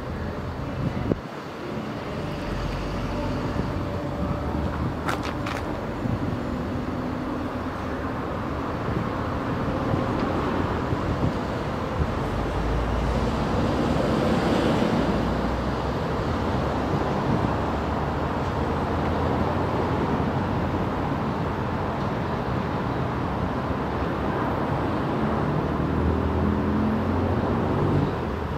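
Class 450 Desiro electric multiple unit approaching along the line, a steady rumble growing slowly louder with a faint motor whine over it.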